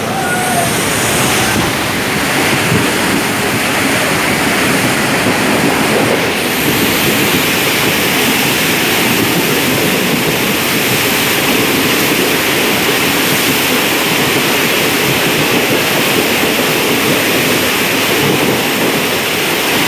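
Steady, loud rush of monsoon storm noise: wind and water, with wind buffeting the microphone.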